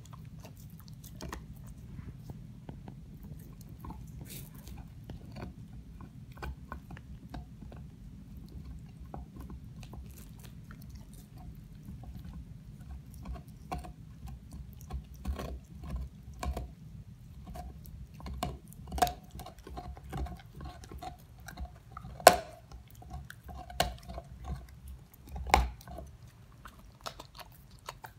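Dog gnawing and licking a large bone: wet chewing and scattered clicks of teeth on bone, busier and louder in the second half, with two sharp loud clicks in the last third. A steady low hum runs underneath.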